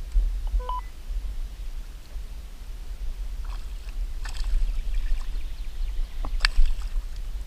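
Hooked smallmouth bass splashing at the water's surface as it is drawn in and grabbed by hand. A run of short splashes and knocks fills the second half, with the sharpest one near the end, over a low steady rumble.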